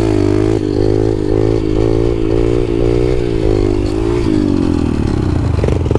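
Yamaha TTR125 single-cylinder four-stroke dirt bike engine running under throttle, heard from the rider's seat. Its pitch holds high with small dips as the throttle is worked over the rough trail, then falls about four seconds in as he eases off, and climbs again near the end.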